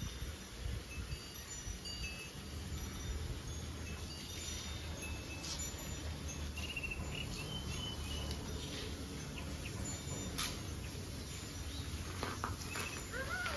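Outdoor garden ambience: scattered short bird chirps and insect calls over a low steady rumble, with one faint click about ten seconds in.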